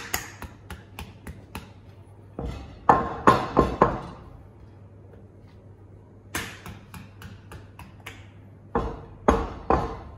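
Ceramic dinner plate of risotto struck on its underside by the flat of a hand, spreading the rice flat: a sharp click, light ticks, then two runs of four or five quick strikes, each with a short ring from the plate.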